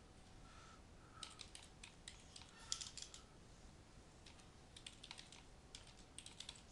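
Faint typing on a computer keyboard as a web address is entered: about four quick runs of key clicks with short pauses between them.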